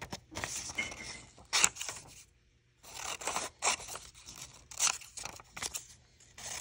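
Scissors cutting through a sheet of copier paper: a run of sharp snips with paper rustling between them, and a short pause a little over two seconds in.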